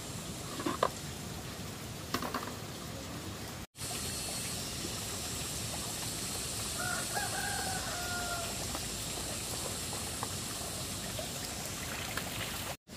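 A rooster crows once, a single held call of about two seconds near the middle, over a steady hiss of background noise. A couple of light knocks come in the first few seconds, and the sound cuts out for an instant twice.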